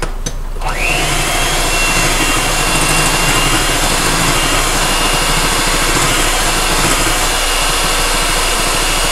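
Electric hand mixer beating brown sugar into pie filling: after a couple of clicks, the motor starts about half a second in, its whine rising to a steady high pitch, and runs on evenly with the beaters churning in the bowl.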